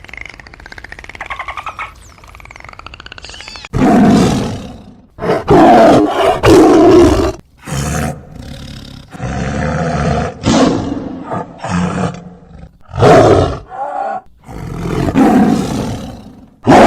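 A large animal calling: a series of loud, harsh roaring grunts, starting about four seconds in and repeating with short gaps. Fainter wavering, howl-like tones come before them.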